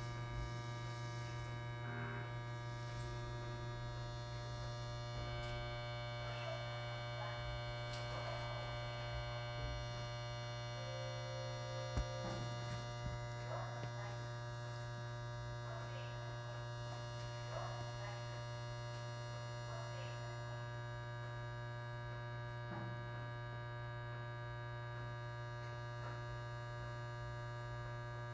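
Steady electrical hum inside a Tobu 20400-series electric train standing at a station, from its onboard equipment, with a few faint short sounds and a single sharp click about twelve seconds in.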